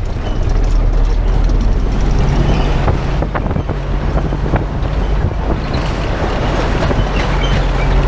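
Empty MAN tractor unit and trailer driving on a rough dirt road: a steady low engine drone under constant rattling and knocking from the trailer sides, wheels and leaf springs. The engine note settles to a steady hum from about two seconds in.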